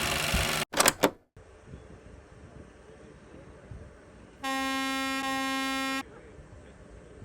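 A loud, steady noise cuts off abruptly under a second in, followed by two or three sharp clicks. Then a car horn sounds one steady honk lasting about a second and a half.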